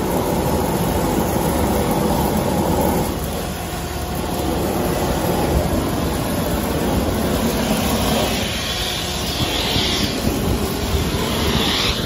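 Steady loud machinery noise, a low rumble under a hiss, from construction equipment running at a shotcrete site. Two brief hissing surges come near the end.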